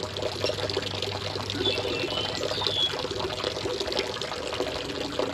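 Creek water running and trickling steadily. A low steady hum underneath stops about halfway through.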